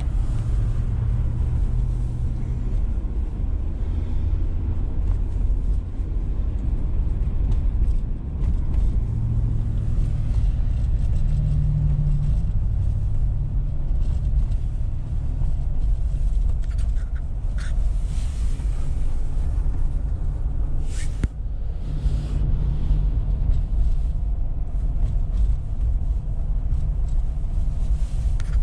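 A car running on a snowy road, a steady low rumble with a hum that rises and fades now and then, and a few short clicks past the middle.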